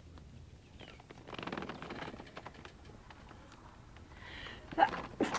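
A puppy very close to the microphone: a short burst of sniffing about a second in. Near the end comes a sudden short rising whine, then a click.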